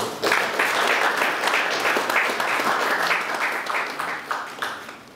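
Audience applauding after a talk: a burst of many people clapping that starts right away, holds steady, then thins out and dies away near the end.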